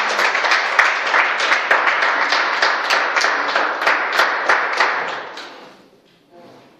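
A small group of people clapping in applause, a dense patter of hand claps that dies away about five seconds in.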